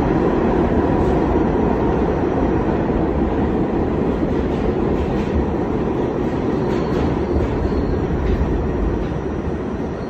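New York City subway B train running, heard from inside the car: a steady, loud rumble and rail noise that grows slightly quieter toward the end.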